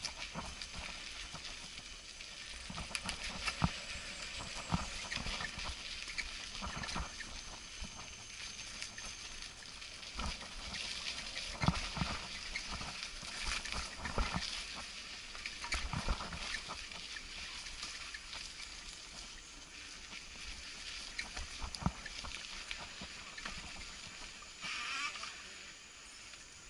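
Mountain bike rolling slowly over a rough dirt trail covered in dead leaves: irregular rattles and knocks from the bike jolting over bumps, over the crunch of the tyres.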